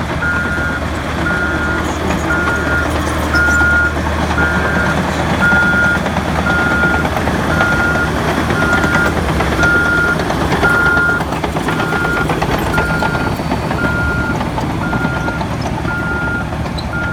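Bulldozers at work, diesel engines and tracks running loud and steady, with a reversing alarm beeping about once a second; for the first few seconds a second, slightly higher alarm beeps along with it.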